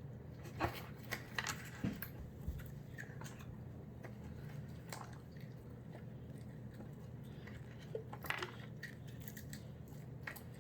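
A child eating Goldfish crackers messily, with faint crunching and scattered small clicks and taps over a low steady hum.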